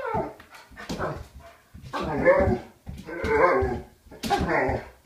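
German Shepherd barking repeatedly: five drawn-out barks about a second apart. The dog is stirred up by lynx outside.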